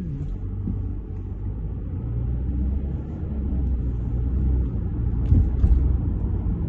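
Low, steady rumble of road noise heard from inside a moving car.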